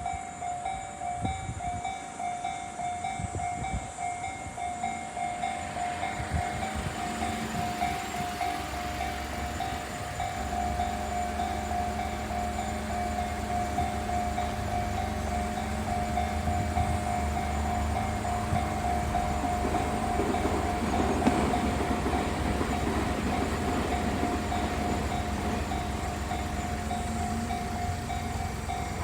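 Japanese level-crossing warning bell ringing with a steady, evenly repeating electronic ding of the slow Tojo type. A Tobu Noda Line train approaches and runs through the crossing: rushing noise builds from about six seconds in, and a wheel-and-motor rumble grows from about ten seconds in, loudest around two-thirds of the way through.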